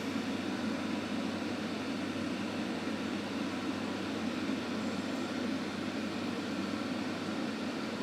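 Steady background room noise, a low whir with hiss, with no distinct handling clicks or other events.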